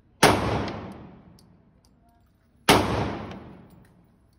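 Two .40 S&W pistol shots about two and a half seconds apart, each with a long echoing decay off the walls of the indoor range.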